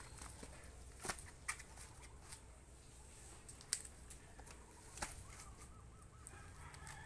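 Faint scattered clicks and knocks, about five of them, as split banana-trunk pieces are handled and laid side by side on soil.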